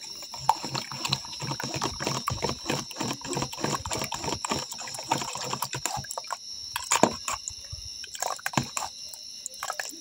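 Liquid splashing as a drink is prepared, with a quick run of small clicks and knocks for about five seconds, then a few separate knocks.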